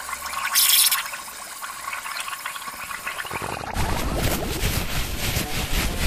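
Watery splashing and bubbling sound effect from a cartoon logo soundtrack: a sharp hiss about half a second in, then a louder, churning gurgle from a little before four seconds on.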